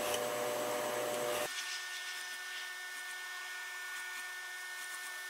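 Industrial sewing machine running as armhole tape is stitched onto mink fur. There is a steady motor whine over a light hiss, and it shifts to higher tones about a second and a half in.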